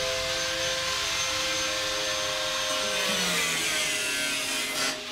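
Hand-held electric power tool running steadily as it cuts through the old melamine crossbar of a bathroom vanity cabinet and its fixings.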